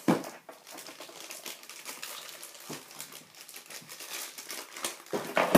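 Clear plastic packaging crinkling as it is handled, a run of small irregular crackles with a louder rustle near the end.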